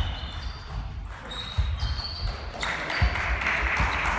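Table tennis rally: the plastic ball clicks and pings off the bats and table several times, starting with a serve. Low thuds of feet on the hall floor come through, and a murmur of voices in the hall grows louder past the halfway point.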